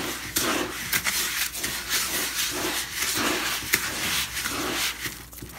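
A hand mixing dry trout chow with egg yolks in a plastic bucket: repeated rustling, scraping strokes, about two a second.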